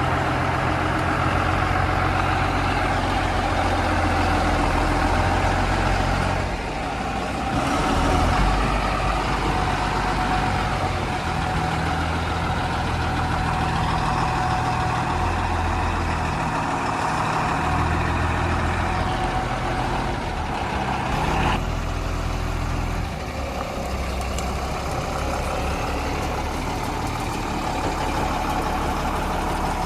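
Heavy diesel engine of a backhoe loader running and working, its note shifting up and down several times, with a steady whine over it; the sound changes abruptly about two-thirds of the way through.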